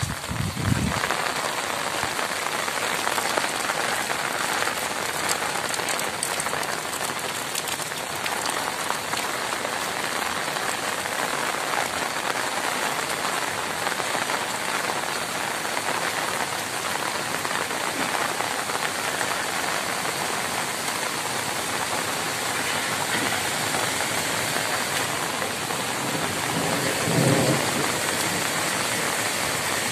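Heavy rain falling steadily, a dense even hiss of rain on the ground and trees. A brief low rumble comes near the end.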